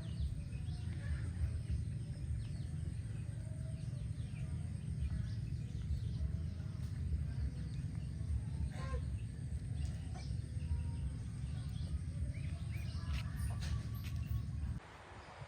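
Chickens and other birds chirping and clucking faintly over a steady low rumble. The rumble cuts off suddenly near the end.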